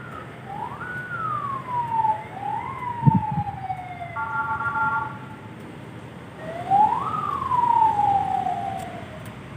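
Siren sounding in three separate sweeps, each rising quickly and then falling slowly in pitch. Midway a chord of three steady horn tones sounds for about a second, and a short low thump comes about three seconds in.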